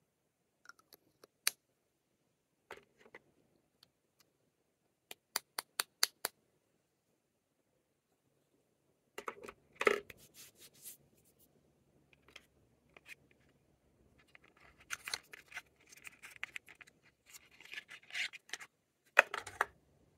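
Lip balm packaging handled and opened by hand: scattered sharp clicks, a quick run of about six clicks around five to six seconds in, then bursts of rustling and scraping in the second half.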